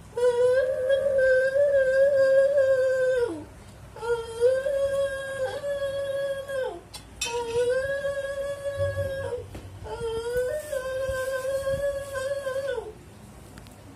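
A woman chanting a prayer in long held notes at one steady pitch: four notes of about three seconds each, each falling away at its end.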